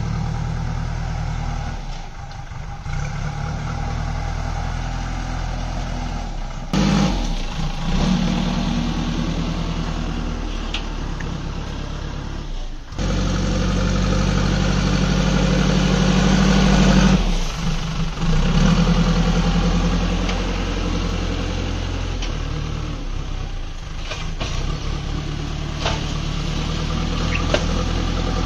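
JCB backhoe loader's diesel engine running as the machine works with its front loader bucket, the engine note rising and settling. The sound jumps abruptly twice, and the engine is loudest a little after the halfway point.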